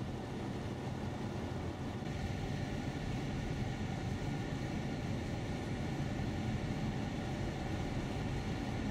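Steady engine and road noise heard from inside a car driving on a snow-covered highway, a constant low rumble that steps up slightly about two seconds in.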